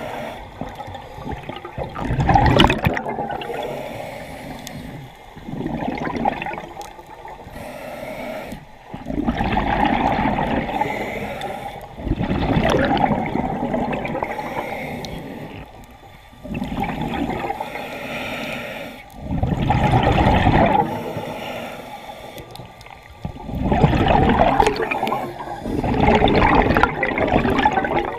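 Scuba diver's regulator breathing underwater: exhaled bubbles rush and gurgle in bursts about every three to four seconds, with quieter stretches between breaths.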